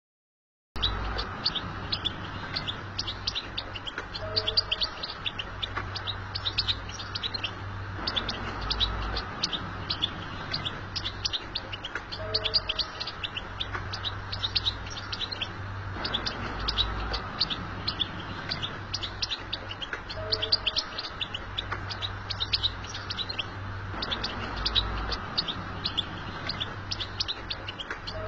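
European goldfinch twittering song: a dense run of quick, high chirps and trills, starting abruptly just under a second in over a steady low hum, with the same passage recurring about every eight seconds.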